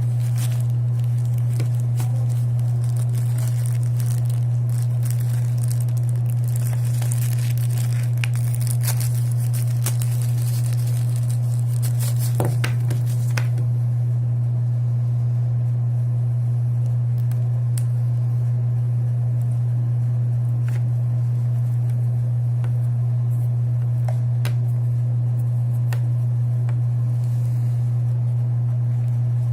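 Plastic and paper packaging crinkling and tearing during an unboxing, busiest between about six and fourteen seconds in, with scattered clicks after. A loud, steady low hum runs underneath throughout.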